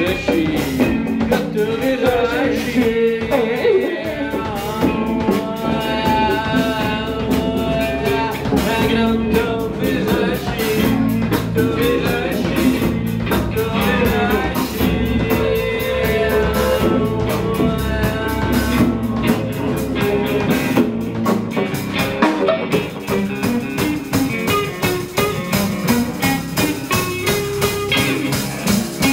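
Live rock band playing: electric guitar, drum kit and bass guitar over a didgeridoo, in a steady, driving groove.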